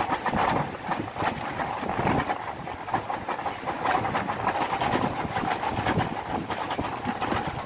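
Strong, gusty storm wind buffeting the phone's microphone, an uneven rumbling roar with many short thumps.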